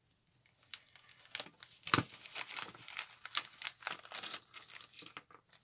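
Small clear plastic bag crinkling and crackling as it is pulled open by hand, with a sharp snap about two seconds in.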